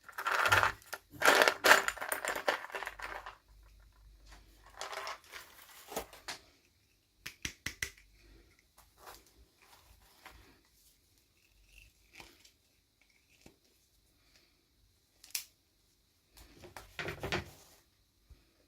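Plastic and foil packaging crinkling and tearing as a toy is unwrapped by hand, in several bursts, the longest in the first three seconds, with scattered small clicks between.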